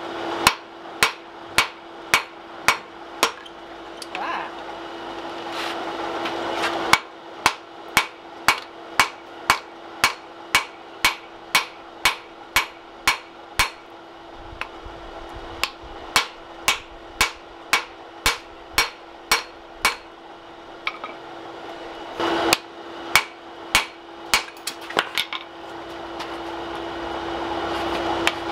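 Blacksmith's hand hammer striking a hot steel ax blank on the anvil in runs of sharp, evenly spaced blows, about two a second, with short pauses between runs. The blows draw a slight taper toward the edge of the forge-welded bit of a mortising ax. A steady hum runs underneath.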